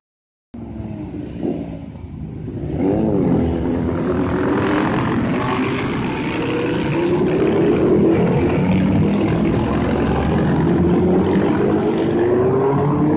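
Several small motorcycles and scooters passing close by, their engines repeatedly rising in pitch as they accelerate. The sound cuts in after about half a second of silence.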